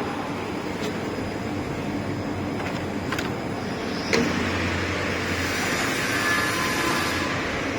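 Steady hum of running machinery and fans, with a few sharp clicks and a stretch of hissing with faint whistling tones about five to seven seconds in.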